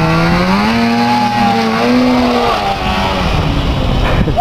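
Ski-Doo Formula snowmobile's two-stroke engine running hard. The revs climb about half a second in, hold, then drop and fade as the sled pulls away.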